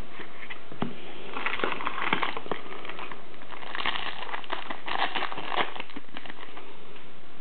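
Trading cards and their wrapping handled by hand: crinkling and rustling in several short bursts, with a few light clicks.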